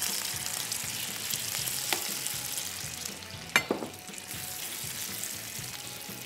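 Corn-flour-coated prawns shallow-frying in hot oil in a pan, sizzling steadily. A utensil clicks against the pan about two seconds in and knocks sharply against it about three and a half seconds in.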